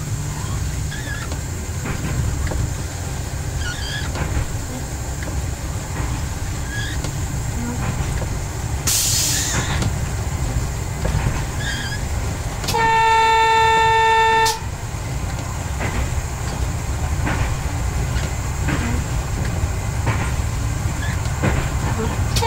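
Y1 railcar, rebuilt with Volvo bus engines, running along the track with a steady low rumble. About nine seconds in there is a brief hiss, and about thirteen seconds in the horn sounds one steady note for just under two seconds, given at a whistle board.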